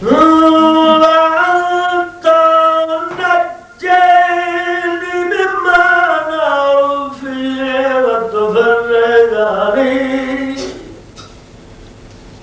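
A man's unaccompanied chanted recitation, sung in long held notes. The melody sinks lower through the last phrase and stops about eleven seconds in.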